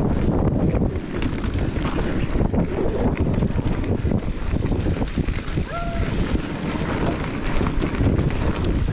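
Wind buffeting the microphone over the rumble and rattle of mountain-bike tyres running fast down a dirt trail, with a brief squeak about six seconds in.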